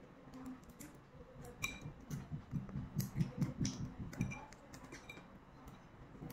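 Balut eggshell being peeled by hand: small crackling clicks of shell breaking and flakes dropping onto a plate. From about two to four seconds in there is a louder stretch of low rubbing.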